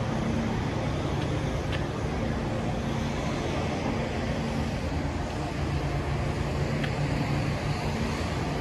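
Street traffic: motor vehicles running on a city street, with a steady low engine hum underneath.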